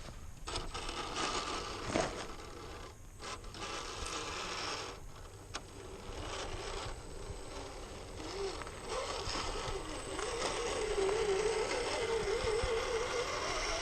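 Radio-controlled Axial Dingo crawler's electric motor and geared drivetrain running in short spurts, with gear clicking and rattle. From about nine seconds in it settles into a steadier whine that wavers in pitch with the throttle.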